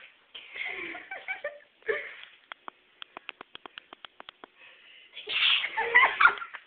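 A young girl sneezing in short noisy bursts, the loudest near the end; in between, a quick run of faint clicks, several a second.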